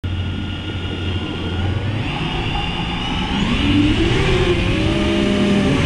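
FPV racing quadcopter's brushless motors spinning, a steady whine that rises in pitch about three and a half seconds in as the throttle comes up.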